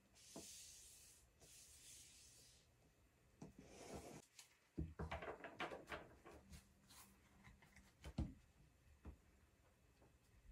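A cardboard tarot card box being handled and opened and the deck taken out: a soft rubbing slide of card, then a run of small clicks and taps with a few low knocks on the wooden table, the loudest about eight seconds in.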